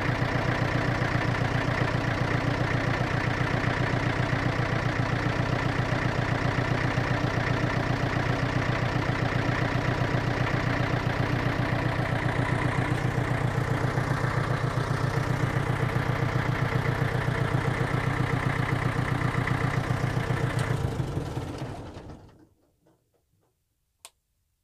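Latil Saviem TL22's diesel engine running steadily, then shut off about 21 seconds in and running down to a stop. A single sharp click follows near the end.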